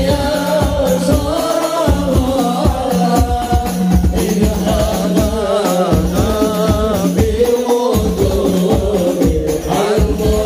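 Men singing a devotional salutation to the Prophet in unison through microphones and a PA, the mahallul qiyam of a Maulid, over a steady beat of hand-struck rebana frame drums.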